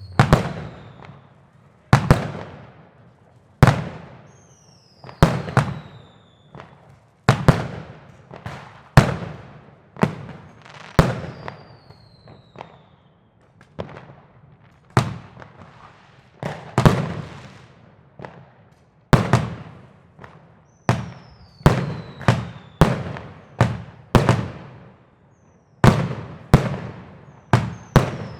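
New Year's Eve fireworks going off: loud bangs every second or so, each trailing off in echo, with now and then a high falling whistle among them.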